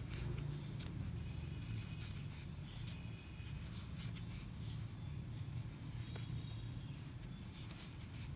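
Faint rustle and scratching of a metal crochet hook pulling milk cotton yarn through stitches, with small scattered ticks, over a steady low hum.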